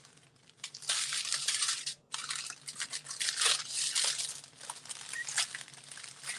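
Small plastic packets of diamond-painting drills crinkling and rustling as they are sorted by hand, in irregular bursts that begin about a second in.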